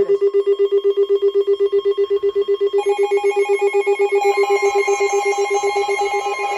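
Electronic alert tone opening an emergency alert broadcast: a rapidly pulsing low beep, joined about three seconds in by a higher pulsing tone and about four seconds in by a steady higher tone.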